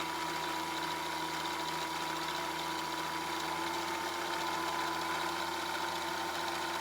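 Singer 5528 sewing machine running steadily with the bobbin winder engaged, winding thread onto the bobbin; an even motor whine that holds one pitch.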